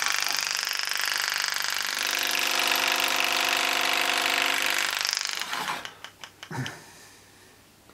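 Super EZ pulse graver's handpiece buzzing steadily as its piston rapidly hammers the graver into a brass plate, with the stroke set very light. It stops about five seconds in, followed by a few light clicks.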